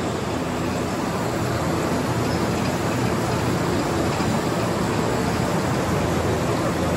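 Tobacco-processing machinery running on a factory floor: a steady, even mechanical din with a low hum underneath.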